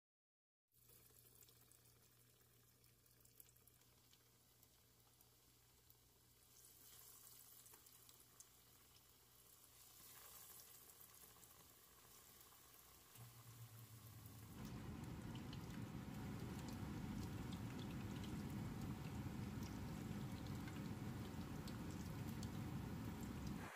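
Breaded chicken nuggets sizzling and crackling in hot oil in a frying pan. It is faint at first over a low steady hum, then much louder and denser from about halfway through.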